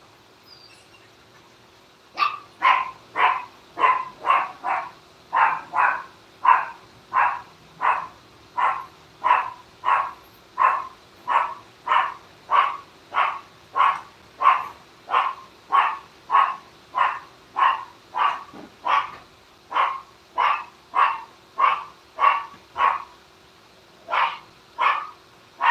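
A dog barking over and over at an even pace, about one and a half barks a second, starting about two seconds in.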